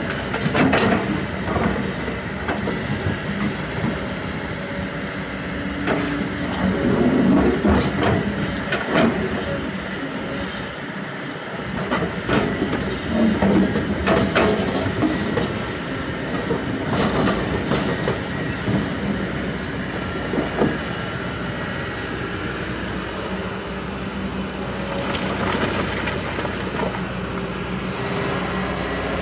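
Kobelco SK200 hydraulic excavator digging in a riverbed: its diesel engine runs steadily under load while the steel bucket clanks and scrapes against river rocks again and again, with water splashing as it digs.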